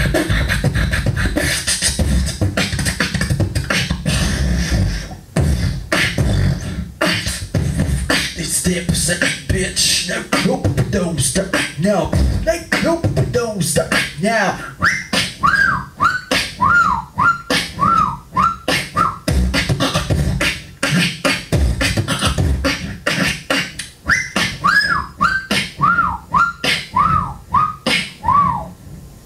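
Solo beatboxing into a handheld microphone: a dense, fast run of vocal kick, snare and hi-hat sounds. Twice, about halfway through and again near the end, it carries a repeated short high falling whistle-like sound, about two a second.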